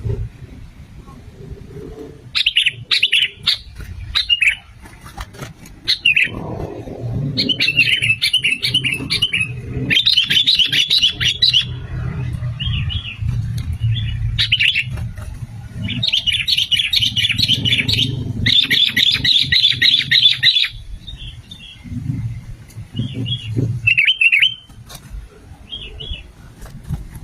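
Sooty-headed bulbul (kutilang) singing: bursts of quick, bubbly chirping phrases, each a second or two long, repeated with short pauses, over a steady low rumble.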